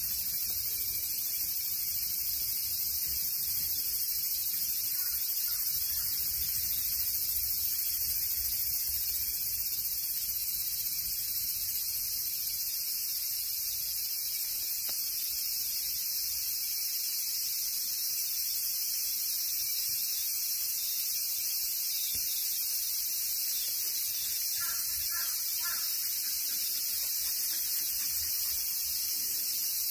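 Steady, high-pitched cicada chorus that holds unchanged throughout, with a few faint short chirps about five seconds before the end.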